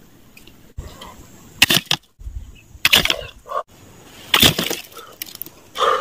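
Thin bamboo sticks being handled and set into mud and grass for a bird trap: four short, sharp noises about a second and a half apart.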